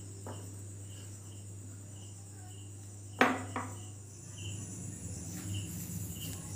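A cricket chirping steadily, about two short chirps a second, over a low steady hum, with a sharp knock a little past three seconds in.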